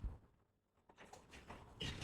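Faint clicks and taps of small tools handling a phone during bench repair, with a short near-silent gap after a soft knock at the start and a sharper click near the end.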